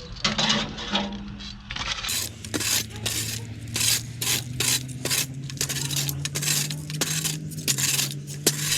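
Metal mucking-out tools clinking and scraping again and again, about two strokes a second, over a steady low hum.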